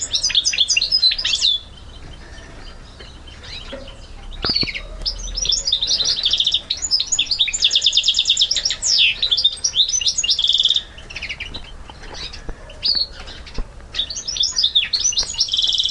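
Goldfinch mule, a goldfinch × canary hybrid, singing a run of fast trills and twittering phrases. The song breaks off about two seconds in, resumes near the five-second mark, thins out after about eleven seconds and picks up again near the end.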